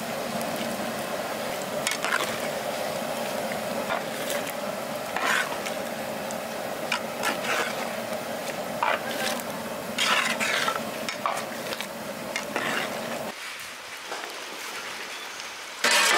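A metal ladle stirring a big pot of thick simmering curry: about a dozen short scraping strokes against the pot over a steady bubbling hiss. The hiss stops abruptly about three-quarters of the way through, and near the end a metal lid clatters against the pot.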